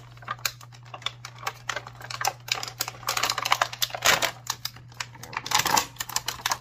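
Clear plastic packaging crackling and crinkling in the hands as an action figure is freed from its bag and ties: a dense run of irregular sharp clicks, loudest about four seconds in and again near the end.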